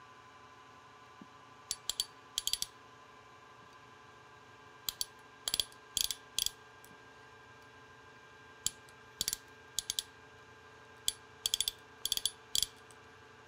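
Ratchet thimble of a bore micrometer clicking in short sets of quick clicks as it is tightened in a bushing's bore to take a measurement. The sets start about two seconds in and come every second or so, over a faint steady machine hum.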